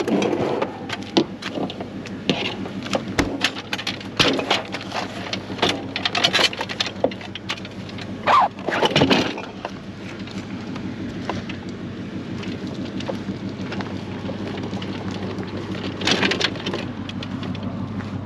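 Clattering and knocking as a discarded appliance is handled onto an aluminium hand truck, then the hand truck's small wheels rolling over a concrete driveway, with a few more knocks near the end.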